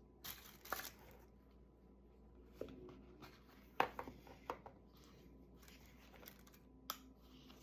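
Scattered small clicks, taps and brief rustles as a lipstick and its quilted lipstick case are handled, with one sharper click about four seconds in.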